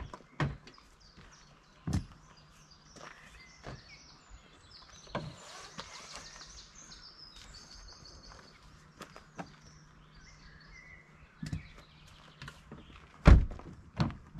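Scattered knocks and thuds of gear being handled at a car, ending in a car door shutting with a heavy thunk near the end. Birds chirp faintly in the background.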